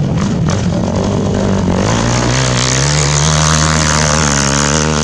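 Racing quad's engine running hard at high revs. It builds into a loud, steady engine tone about two seconds in as the quad comes close.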